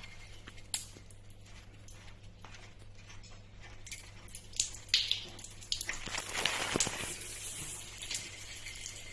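Pipe wrench loosening a union fitting on a water pipe, with faint metal clicks and scrapes, then water starting to run out of the opened joint about six seconds in.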